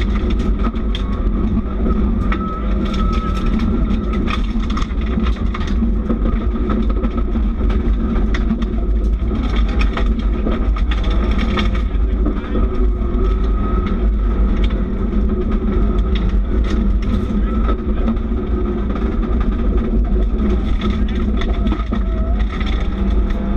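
Subaru rally car at speed on a gravel stage, heard inside the cabin: the engine runs hard with its pitch rising and falling, over a constant rattle of sharp ticks from gravel striking the car.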